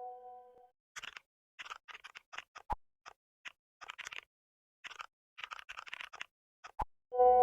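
Texting sound effects: a chime-like message alert fades out in the first moment, then several runs of quick keyboard typing clicks follow, broken by a couple of single sharp clicks. A new message alert chime starts right at the end.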